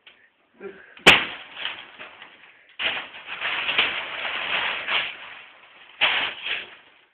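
A sharp bang about a second in, then paper sheeting over a doorway tearing and crumpling in loud bursts of rustling.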